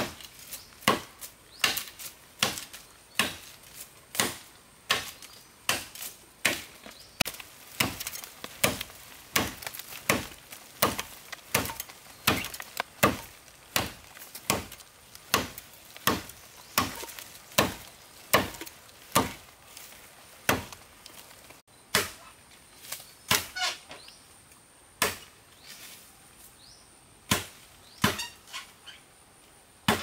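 Bamboo being chopped with a blade, sharp woody strokes about two a second, then fewer and more spaced out after a short pause about two-thirds of the way through.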